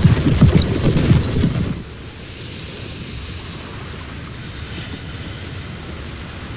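Heavy, dense footsteps of marching soldiers in a film soundtrack for the first couple of seconds. They stop abruptly and give way to a steady rushing noise.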